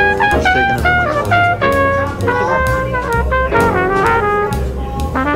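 Background music: jazz with a brass melody over drums and bass.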